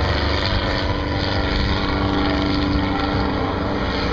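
Helicopter flying overhead, its rotor and engine making a steady, continuous drone.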